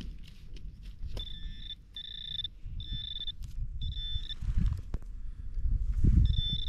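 Handheld metal-detecting pinpointer probe beeping in short high-pitched tones, about five times at uneven gaps, as it is swept through the soil of a dig hole: its alert that the buried target is close. Low rumbling noise of handling and wind runs underneath, loudest near the end.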